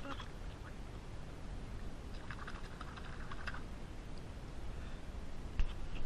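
Faint outdoor ambience with light, irregular clicking and tapping, and one short sharp knock near the end.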